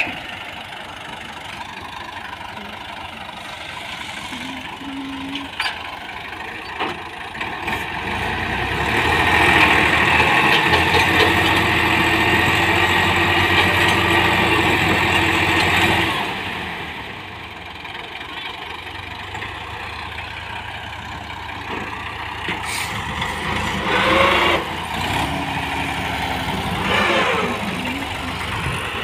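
Tractor diesel engines running. About eight seconds in they rev up under load and hold there for about eight seconds, as the mired tractor and its loaded trolley are pulled at by rope, then ease back to a lower run.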